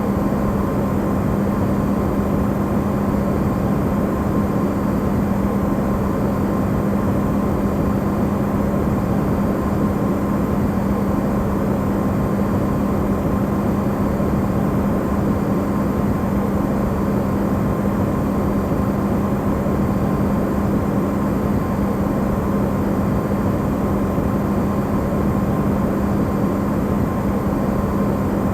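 Electrolux refrigerator running, recorded amplified: a steady hum with a low tone and a fainter higher tone over a rushing noise.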